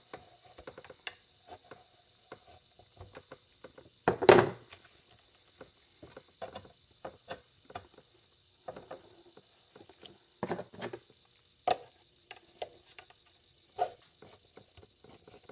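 Irregular clicks, taps and scrapes of a flat-blade screwdriver working an aftermarket cone air filter onto the ribbed air mass meter housing, with one louder knock about four seconds in and a few more sharp knocks later on.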